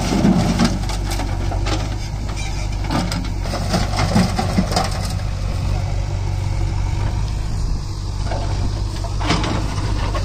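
Diesel engines of a JCB 3DX backhoe loader and a Swaraj 744 FE tractor idling with a steady hum, while stones clatter into the tractor's steel trolley from the backhoe bucket in short sharp knocks, heaviest about nine seconds in.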